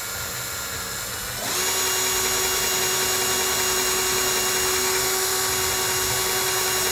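Bosch cordless drill spinning a sanding disc against a small wooden block, its motor whining steadily. About a second and a half in, the motor speeds up to a higher, louder whine and holds there.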